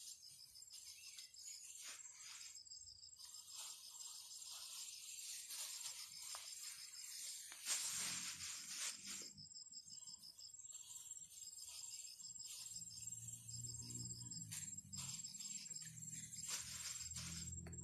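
Insects chirping in the field: a faint, steady, high-pitched pulsing trill. A brief rustling burst about eight seconds in.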